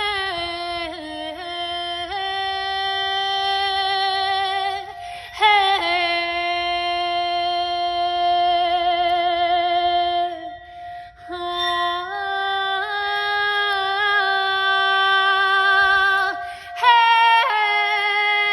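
Background music: a high wordless vocal line holding long notes with vibrato, in phrases of a few seconds, over a steady held tone.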